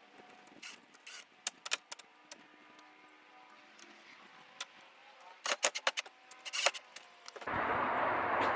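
Scattered small clicks and taps of sliding screen door hardware being handled and snapped into place on the aluminium frame, with a quick run of clicks about five and a half to seven seconds in. Near the end a steady rushing noise starts suddenly and is louder than the clicks.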